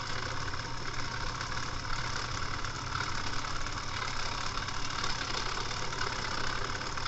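Rotator of a 3D-printed mini Thunderbolt siren running steadily, freshly oiled with 3-in-1 oil: a small 12-volt DC motor run on 3 volts turns the siren head through its gearing, giving an even low hum with a grainy whir.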